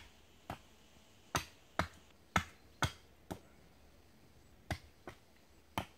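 A series of sharp knocks, about ten strikes in uneven groups of two or three, each one short and crisp, from hands-on work building a camp fire table.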